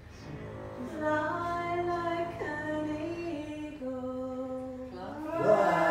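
A group of voices, mostly women's, singing a slow chant without accompaniment, holding long notes that step slowly in pitch. It begins softly about a second in and grows louder near the end.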